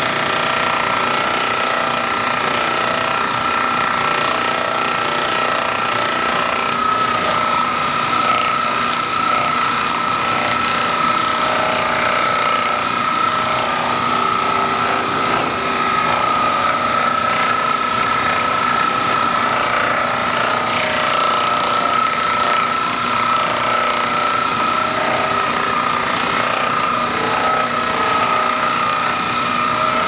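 Handheld percussion massage gun running steadily on the body, with a constant high whine over its rapid motor hum.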